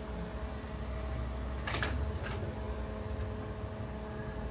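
A steady low hum with a couple of short, sharp clicks about two seconds in.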